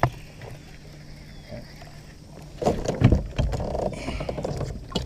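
Small fishing boat on the water: a faint steady low hum, then about two seconds of rough knocking and splashy low noise starting about two and a half seconds in.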